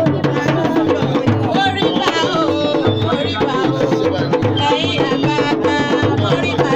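Yoruba praise music: drums keep a steady beat under singing voices.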